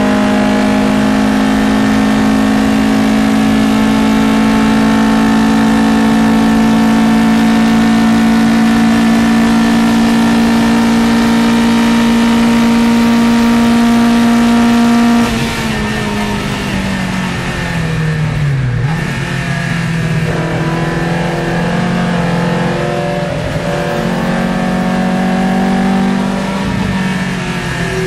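Matra Jet 6's Renault Gordini 1296 cc four-cylinder engine heard from inside the cockpit. It is held at steady high revs flat out for about fifteen seconds, then the driver lifts off suddenly and the revs fall through the braking. After that the revs climb and drop again through the corner.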